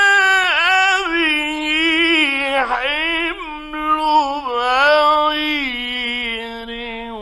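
A man's voice chanting Quran recitation in the melodic, drawn-out mujawwad style: a held note breaks about half a second in into one long wavering, ornamented line that steps gradually down in pitch. It is heard through a narrow-band old radio recording.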